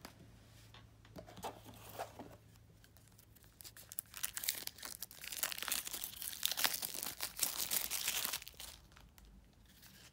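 Plastic shrink wrap crinkling and tearing as it is stripped off a deck of cards. A few light taps come first; the dense crackling starts about four seconds in and stops about a second before the end.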